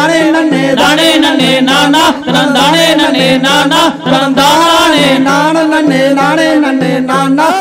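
Tamil folk song for a kummi dance: a voice singing over a steady low drone, with quick sharp taps keeping the beat.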